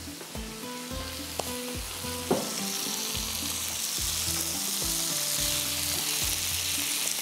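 Vegetables and paneer sizzling in butter on a hot sizzler pan, the hiss growing louder a couple of seconds in, with a single sharp click near that point.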